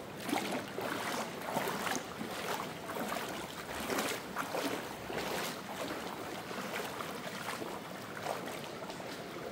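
Flowing river water rushing steadily, with irregular surges.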